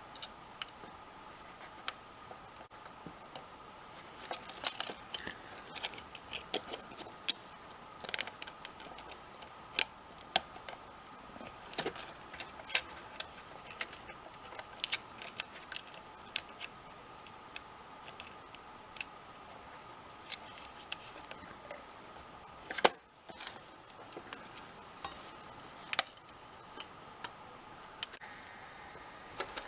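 Irregular small clicks and taps of plastic casing parts and screws being handled as a PlayStation 4 console is put back together by hand, with a sharper click about 23 seconds in.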